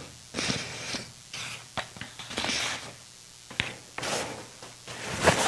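Paper tissue rustling as it is pulled from a tissue box, in several short noisy bursts, with one sharp click about three and a half seconds in.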